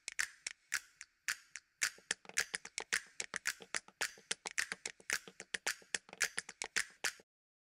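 Percussive intro sound design: a quick run of sharp clicks and taps in a rhythm, about six a second. The first two seconds are sparser and thinner, then the hits become denser and fuller. It stops abruptly about seven seconds in.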